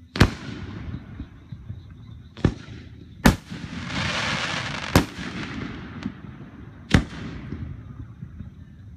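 Aerial fireworks shells bursting overhead: five sharp bangs at irregular spacing, with a spell of hiss between the third and fourth bangs.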